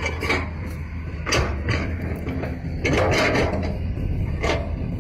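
HUINA remote-control toy excavator's small electric gear motors whirring and clattering in short bursts as its arm and bucket move, over a steady low hum.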